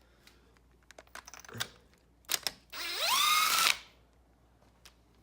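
A handheld power tool's motor spins up in a rising whine, runs steadily for about a second and stops suddenly, as it backs out one of the engine's old spark plugs. A few sharp clicks of tool and socket handling come just before it.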